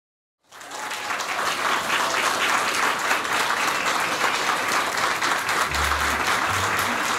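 Audience applauding steadily, starting abruptly about half a second in, with a few low thuds near the end.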